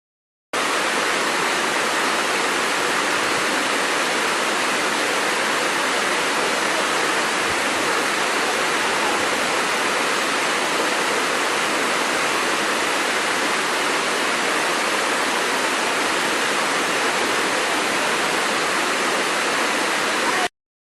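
Waterfall: a steady rush of falling water, coming in abruptly about half a second in and cutting off abruptly near the end.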